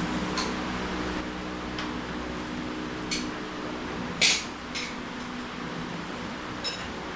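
A few light metallic clinks and taps from a sheet-steel patch panel being handled and shaped, the loudest about four seconds in, over a steady low hum.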